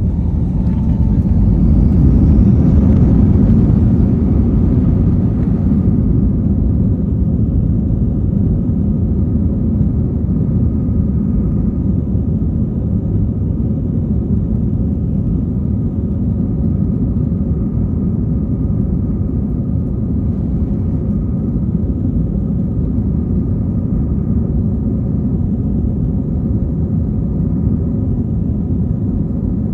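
Inside the cabin of a Wizz Air Airbus A320-family jet: a steady low rumble of the engines and airflow, with a faint steady hum. A louder hiss swells over the first few seconds, then settles to an even drone.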